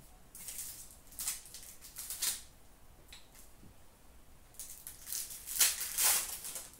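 Foil trading-card pack wrappers crinkling as they are handled: a few short rustles, then a louder spell of crinkling near the end.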